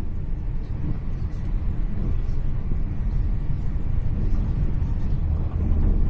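Steady low rumble of a Hitachi Class 800 Intercity Express Train running along the line, heard from inside the passenger saloon.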